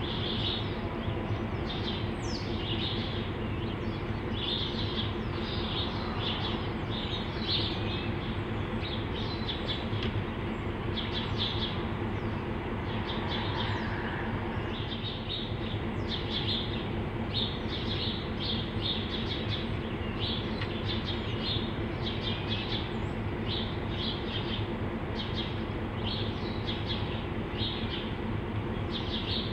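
EMD G22AR diesel-electric locomotives idling at a standstill: a steady, even low hum. Birds chirp repeatedly over it throughout.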